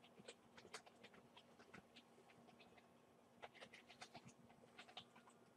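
Faint, irregular clicks and taps of a computer keyboard and mouse in use, in two bursts, over a low steady hum.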